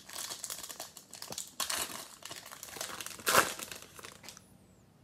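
Foil wrapper of a 2020 Panini Select football card pack crinkling as it is torn open by hand. The loudest rip comes about three and a half seconds in, and the crinkling stops shortly before the end.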